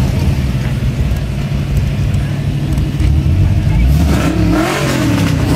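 A car engine running at idle, then revved near the end, its pitch rising and falling.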